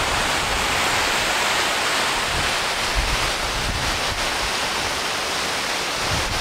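Water rushing over a low river weir: a steady, loud rush, with low wind buffeting on the microphone.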